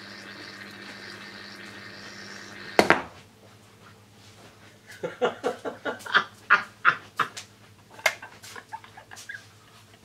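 Water boiling hard between two mains-powered graphite plates, a steady hiss with a hum, ended about three seconds in by one loud sharp crack as the plates short out where their hot-glue spacer melted; the hiss stops with it. Later come short squeaky bursts of a voice played back at double speed.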